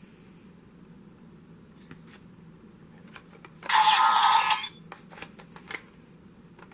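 Decadriver henshin belt sound effects: a few sharp clicks, then about a second of bright, ringing electronic chime about four seconds in, followed by more clicks, over a faint steady hum.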